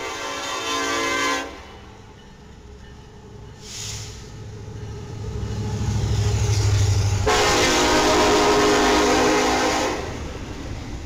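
BNSF diesel freight locomotive passing close by and sounding its multi-tone air horn in two long blasts: the first ends about a second and a half in, the second and louder one comes about seven seconds in and lasts nearly three seconds. The engine's low rumble swells between the blasts, and near the end the container cars roll by.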